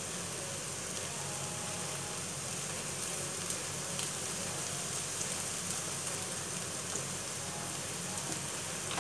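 Chopped onions sizzling steadily in a frying pan over a gas burner, with a few faint ticks.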